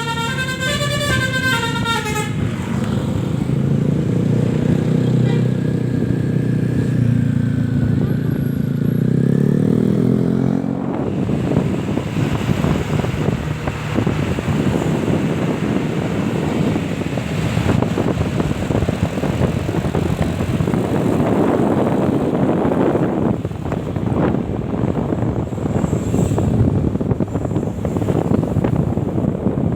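Bus telolet horn (Basuri V3) playing a fast, stepping melody of high notes, then lower-pitched horn notes until about eleven seconds in. After that only the bus's engine and road noise remain.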